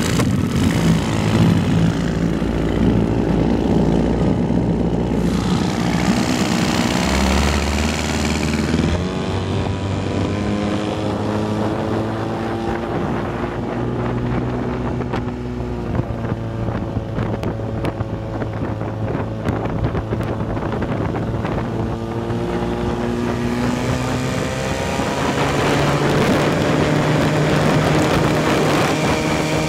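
Vikhr-30 two-stroke outboard motor running with the boat under way, its engine note rising and falling as the throttle changes and picking up near the end.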